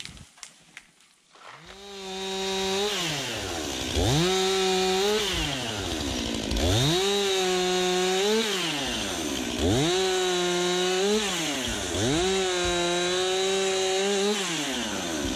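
Stihl MS 261 two-stroke chainsaw cutting through the limbs of a downed tree. From about two seconds in, it revs up to full throttle, holds there through a cut and drops back toward idle, four times over.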